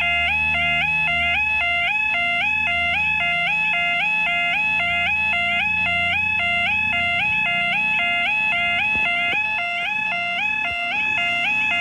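Railway level crossing alarm sounding a continuous two-tone warble, stepping between a lower and a higher note two or three times a second, with a low rumble underneath.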